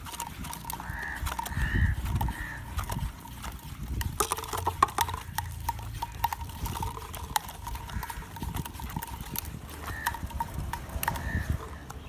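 A paper cup being handled and turned as sewing thread is wound around it: irregular taps, knocks and scrapes of the cup and fingers. Birds call repeatedly in the background.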